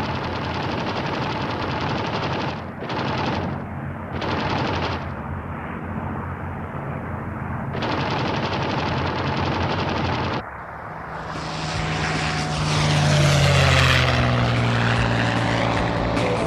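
Propeller fighter's piston engine droning steadily, the sound dipping briefly a few times. About ten seconds in it drops away, then a P-51 Mustang's V-12 engine grows loud as the plane flies in low and passes close, its pitch sweeping as it goes by.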